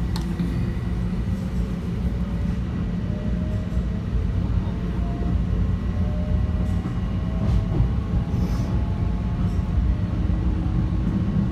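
Metro-North commuter train running, heard from inside the passenger car: a steady low rumble of wheels on rail with a faint rising whine through the middle and a few sharp clicks.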